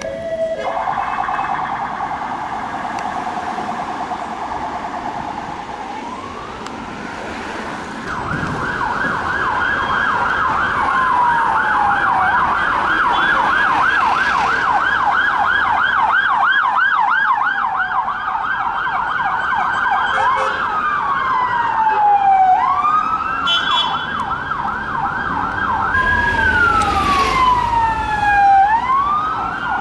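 Electronic police car sirens in fast yelp, now and then swept down into a slower falling wail. In the second half several sirens overlap as a convoy of unmarked police cars passes.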